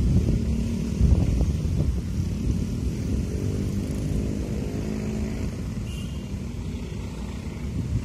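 Diesel-hauled passenger train running away down the line: a low rumble that slowly fades as it recedes, with a faint engine hum in the middle.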